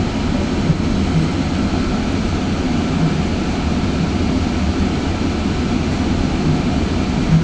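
Steady low rumble inside a GO Transit bilevel passenger coach as the train rolls slowly, with a couple of small knocks.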